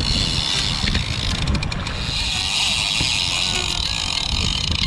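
Fishing reel drag buzzing steadily as a running southern bluefin tuna pulls line off the spool, over gusty wind on the microphone.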